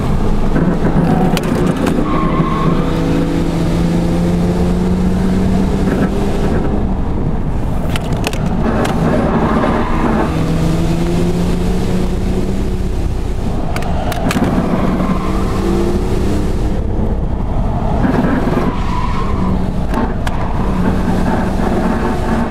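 Car engines held at high revs, their pitch rising and falling in long pulls, with tyre noise from a Nissan Skyline drifting ahead, heard from inside the following car.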